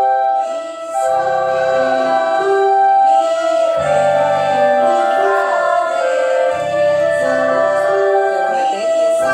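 Background music: long held chords over low bass notes that change every second or so.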